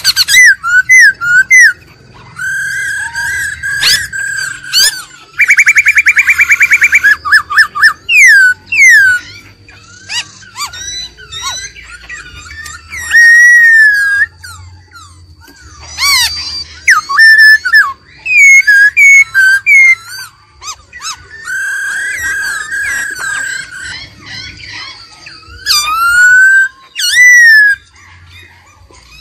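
Black-throated laughingthrush singing: loud, varied whistled phrases that slide up and down, broken by a fast rattling trill about six seconds in.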